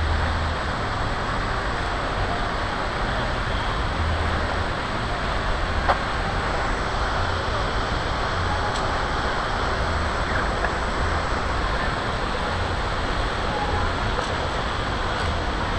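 Steady city road traffic noise, with one sharp click about six seconds in.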